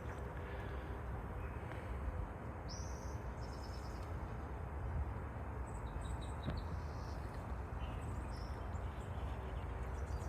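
Small songbirds giving short, high chirping calls several times, over a steady low background rumble.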